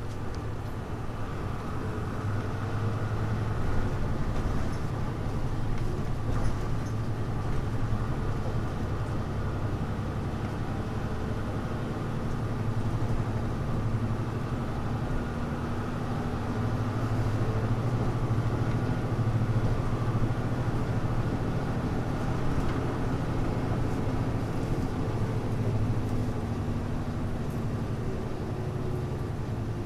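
Hino Blue Ribbon U-HU2MLAA city bus engine running under way, a steady low diesel drone that swells and eases as the bus pulls.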